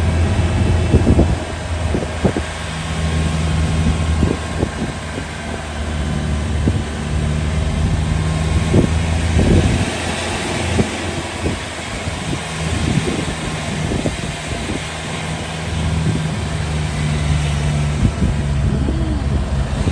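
Safari jeep's engine running under way, its pitch rising and falling with the throttle, with tyre and road noise and low buffeting thumps of wind on the microphone.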